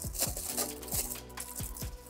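Background music with a deep bass beat that falls in pitch on each hit, over the crinkle of a clear plastic bag wrapped around a camera as it is handled and lifted out of its cardboard box.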